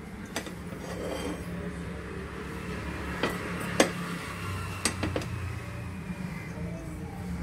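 A metal utensil clinks against a stainless steel pan about five times, the loudest a little under four seconds in, over a steady low hum.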